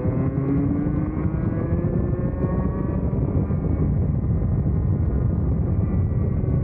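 Vortex Mini ROK 60cc two-stroke kart engine at full throttle, its pitch rising steadily for about three seconds as the kart accelerates and then holding near the top of its range.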